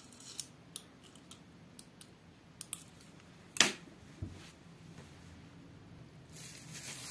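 Quiet, scattered light clicks and taps of a hand handling a syringe and sponge at a cast-iron radiator plug, with one sharper tap about three and a half seconds in. A faint hiss comes in near the end.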